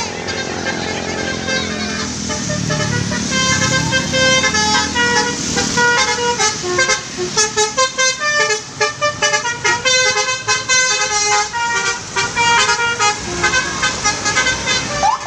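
Tour bus's multi-note telolet (basuri) horn playing a quick tune of short stepped notes. A bus engine swells and fades underneath about two to four seconds in.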